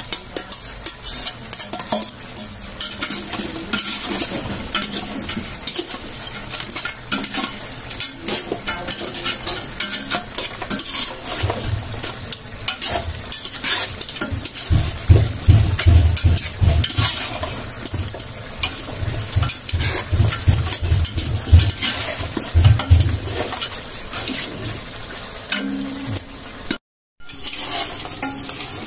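Duck dinuguan sizzling in an aluminium pot while a metal ladle stirs it, scraping and clinking against the pot sides and bottom. The blood has just been stirred into the dried-down adobo. Dull low knocks come in the middle, and the sound cuts out for a moment near the end.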